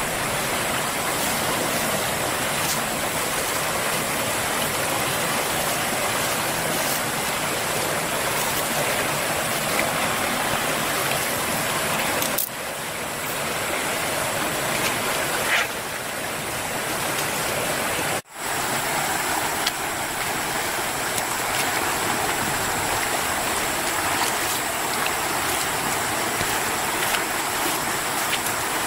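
Steady rushing of a flowing river, an even noise with no let-up, interrupted by a brief sharp dropout a little past the middle.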